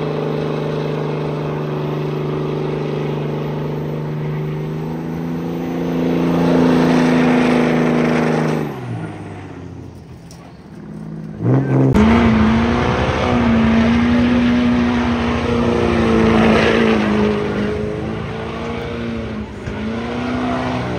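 Car engine running steadily, dropping in pitch and fading about nine seconds in. A louder engine comes in suddenly a few seconds later, its pitch rising and falling as it is revved or driven.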